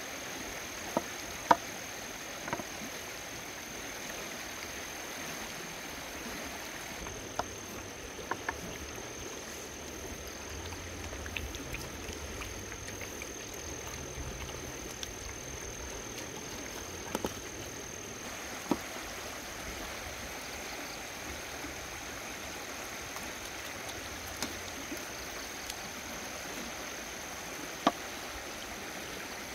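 Puppies eating from a split-bamboo trough: a dozen or so scattered sharp clicks and knocks over a steady outdoor hiss, with a continuous thin high-pitched whine throughout.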